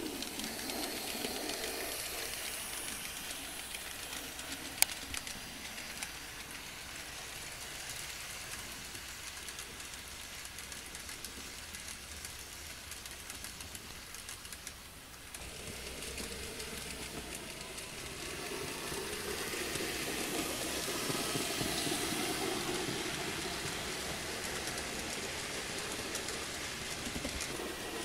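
Model train running on the layout's track: a steady noise of small wheels on rail and the locomotive's motor, with one sharp click about five seconds in. The sound changes abruptly about halfway through and swells a few seconds later.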